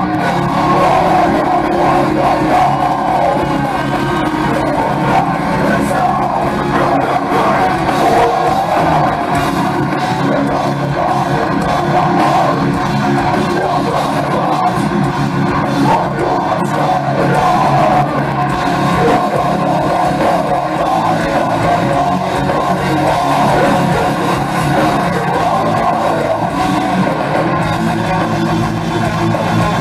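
Heavy metal band playing live: distorted electric guitars, bass and drums, with vocals, loud and continuous, heard from the crowd in a packed club.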